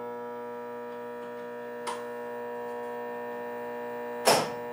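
Solenoid valves on a Bridgeport Series 1 CNC mill clicking as they actuate the air motor of the variable-speed belt drive. There is one click about two seconds in and a louder one near the end, over a steady hum.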